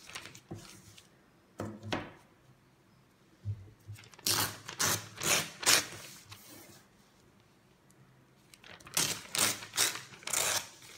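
Folded newspaper being torn into a long strip along the edge of a steel ruler: two runs of quick ripping strokes, the first about four seconds in and the second near the end, with paper rustling between.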